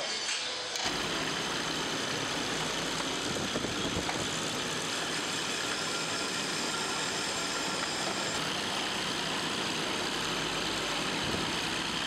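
Coil-winding machine running steadily as it winds copper wire onto a ceiling-fan stator: an even mechanical hum with a steady high whine, starting about a second in.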